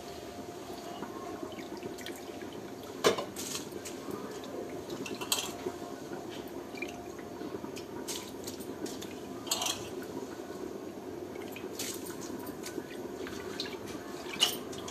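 Handfuls of soaked rice dropped by hand into a steel pot of boiling spiced water, over a steady bubbling of the pot. Four sharp splashes, the loudest about three seconds in.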